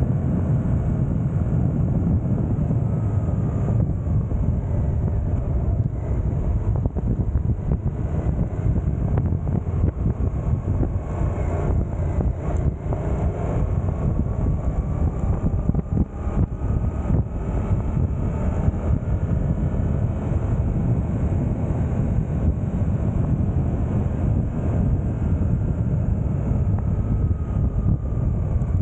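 Suzuki GSX-8S parallel-twin engine running at road speed, with wind rushing over the microphone. The bike slows from about 90 to under 60 km/h and is shifted down from fourth to third gear.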